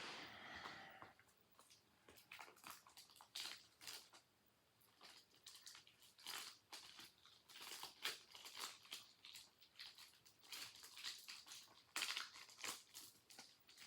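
Faint crinkling and crackling of plastic shrink wrap being peeled off a Blu-ray case, in short irregular crackles with a louder rustle at the very start.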